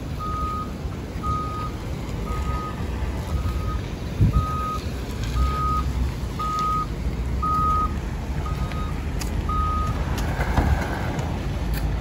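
A lifeguard Jeep's reversing alarm beeps about once a second on a single steady tone as the vehicle backs up, stopping about ten seconds in. A low engine rumble runs underneath.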